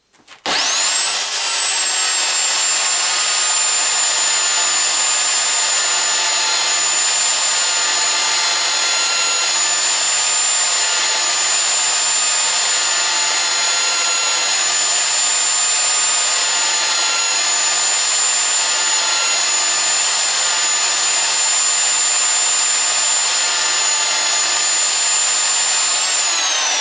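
Corded electric drill running at steady high speed with a high whine, a roller in its chuck and a coin held against the roller to take glue residue off the coin's face. It starts about half a second in with a quick rise in pitch and is switched off near the end, the whine starting to fall.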